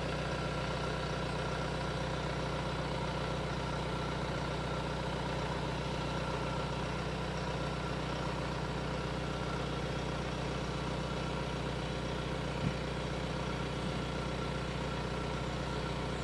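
Kia Sorento's 2.2 diesel engine idling steadily, an even low hum, with one faint click late on.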